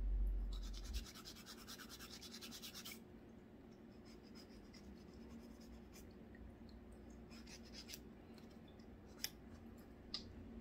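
A nail file rasps in quick back-and-forth strokes on a polygel nail tip, shaping it to a point, with a low rumble in the first second. The filing stops about three seconds in, leaving only a few faint taps.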